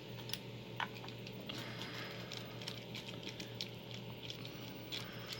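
Small metal padlock parts and a screwdriver being handled and set down on a bench: scattered light clicks and taps, over a steady low hum.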